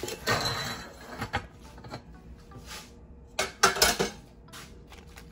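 Metal cake pan scraping and knocking as its separable middle section is worked free, then a few sharp clanks about three and a half seconds in.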